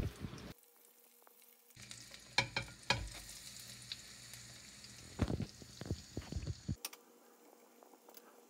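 Panko-breaded onion pieces sizzling as they deep-fry in hot oil, with a few sharp knocks and clicks as more pieces go into the pan.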